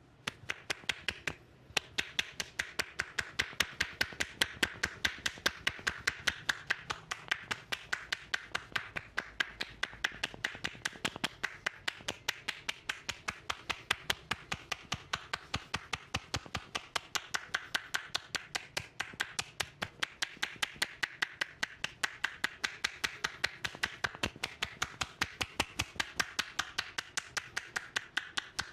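Rapid, even percussive massage strikes on the body, about five sharp taps a second, keeping a steady rhythm throughout.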